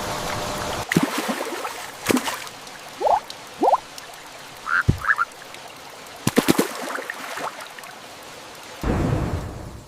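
Steady rain noise cuts off about a second in, followed by a run of short, rising animal calls, about a dozen over six seconds; rain noise returns near the end.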